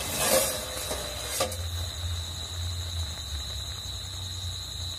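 Sugar syrup with chhana balls boiling in a metal kadai, a steady bubbling hiss. A brief clatter of metal near the start and a click about a second and a half in.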